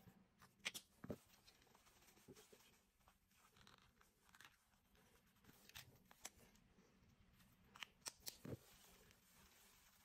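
Near silence, broken by a few faint clicks and soft rustles of hands handling small objects: a marker, a tissue and a die-cast model car.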